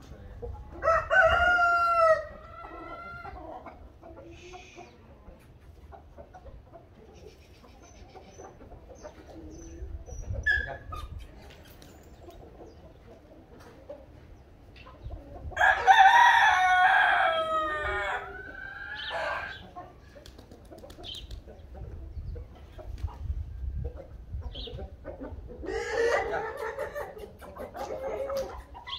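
Brahma roosters crowing, three crows: one about a second in, a longer and loudest one about halfway through, and a fainter one near the end.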